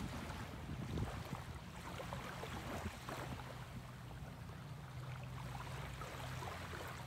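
Outdoor shoreline ambience: small waves lapping and wind on the microphone, with a low steady drone underneath that grows clearer about halfway through.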